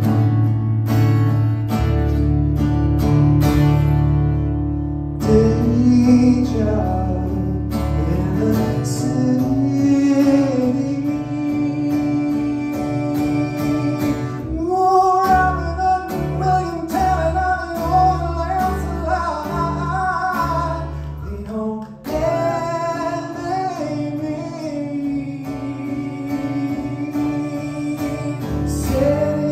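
Live solo acoustic guitar strummed steadily with a man singing over it. The voice comes in about five seconds in and is strongest in the second half.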